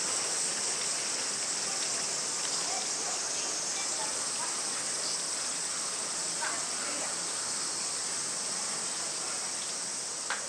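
A steady chorus of summer cicadas: a continuous, high-pitched buzzing drone.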